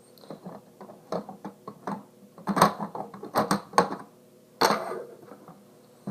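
Plastic Lego pieces clicking and knocking as a built Lego set is handled, in irregular short clicks with a cluster in the middle and a louder knock about four and a half seconds in.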